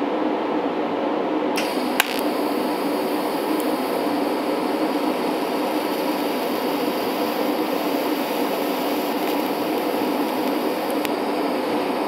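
TIG arc brazing silicon bronze filler onto a steel patch on a radiator port: the arc comes in a little under two seconds in, with a click just after, and runs as a steady hiss over a steady fan hum.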